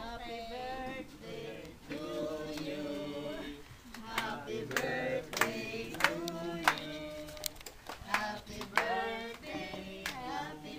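A small group of voices singing together, joined by sharp hand claps from about four seconds in.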